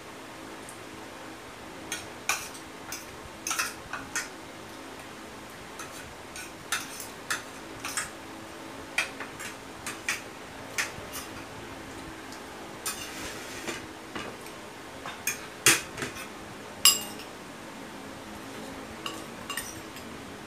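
Metal spoon and fork clinking and scraping against a plate and bowl while eating, in irregular light clinks; the two loudest come about three-quarters of the way through.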